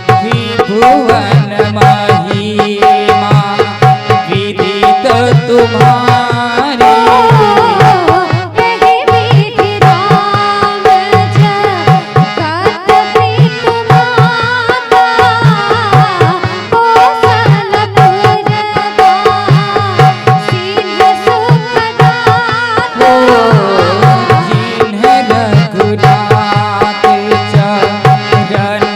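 Indian devotional music led by tabla: a quick, steady run of drum strokes under held sustained tones, with a melody line that bends and slides over them.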